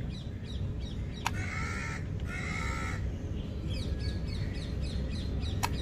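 Birds calling in the background: two harsh caws, one after the other, a little past a second in, over faint quick chirps that repeat throughout. Two sharp clicks are also heard, one early and one near the end.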